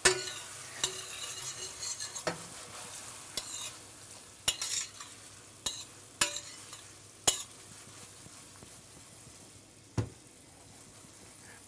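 Metal spoon stirring and scraping sliced mushrooms in a mushroom pan sauce reducing in a stainless steel skillet, with sharp clinks of the spoon on the pan over a steady sizzle that grows quieter in the second half. About ten seconds in, a single dull knock as the pan is lifted off the gas burner.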